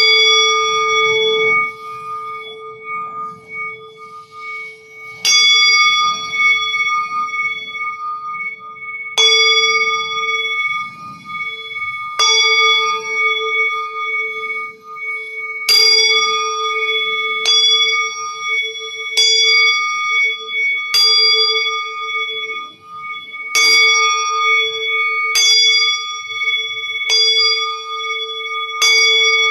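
A singing bowl struck about eleven times, every two to four seconds. Each strike leaves a long, overlapping ring of several tones over a steady low hum that pulses slowly.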